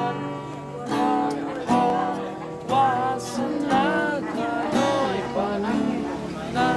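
Cutaway acoustic guitar strummed, a chord struck about once a second, with a man singing along over it.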